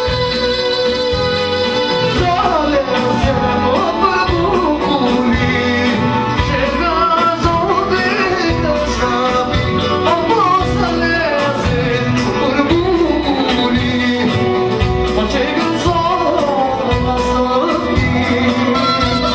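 Wedding dance music in a folk style: a steady drum beat under a singing voice with a winding, ornamented melody.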